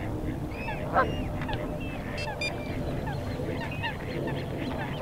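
A flock of waterfowl on open water calling, with many short calls overlapping one another and one louder, falling call about a second in.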